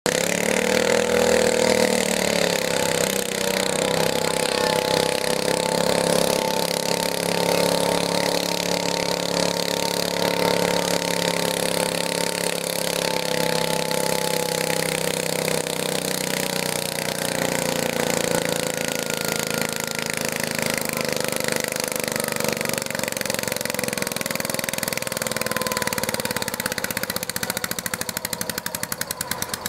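International Harvester garden tractor engine running hard while pulling a weight-transfer sled. Its note sinks slowly as the load builds, and near the end it turns choppy.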